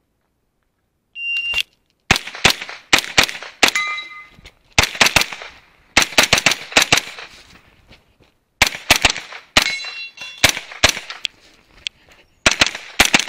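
Shot-timer beep, then about half a second later a pistol-caliber carbine firing fast pairs and strings of shots, in several bursts with short pauses between them. Steel targets ring briefly when hit.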